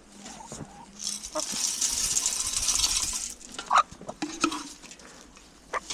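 Dry chicken feed pouring from a container into a feed bowl: a rattling hiss lasting about two seconds, followed by a few light knocks.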